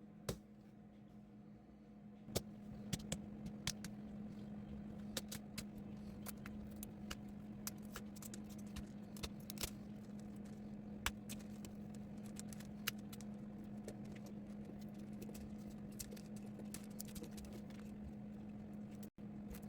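Irregular plastic clicks and ticks as an Asus X515E laptop's screen bezel is pried off its clips, played back sped up, over a steady low hum.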